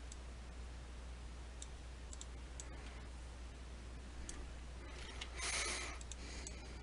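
Faint, sparse computer mouse and keyboard clicks over a steady low hum, with a brief soft rustle of noise about five seconds in.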